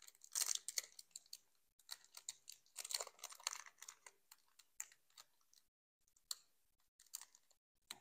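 Foil wrapper of a Pokémon booster pack crinkling and crackling between the fingers as it is picked at to tear it open: an uneven run of small crackles and clicks, with short pauses.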